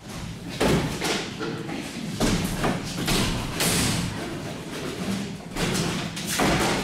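A series of heavy thumps and knocks at an uneven pace, over a continuous background of noise.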